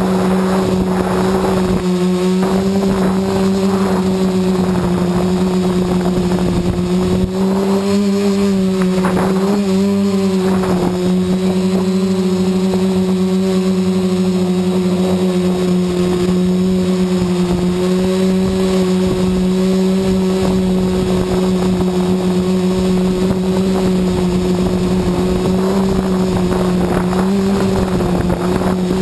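Quadcopter's electric motors and propellers buzzing steadily while it hovers, picked up close by a camera on the frame. The pitch wavers briefly about eight to ten seconds in as the motors adjust.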